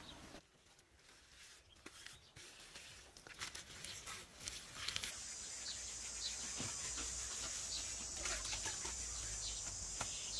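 Outdoor forest ambience: birds chirping, with a steady high-pitched buzz of insects coming in about halfway through. Scattered light taps and scrapes of hand work on mud and bamboo are heard alongside.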